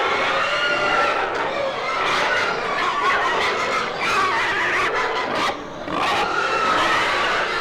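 Pigs in a sty squealing, many shrill squeals overlapping and gliding up and down without a break.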